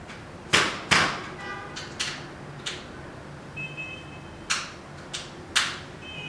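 Sharp knocks and clicks of metal projection-screen frame sections being handled and fitted together at the corners: two loud knocks about half a second apart near the start, then scattered lighter taps, with a faint metallic ring after some.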